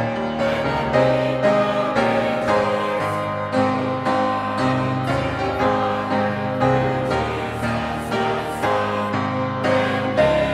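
Church congregation singing a hymn together, accompanied by piano.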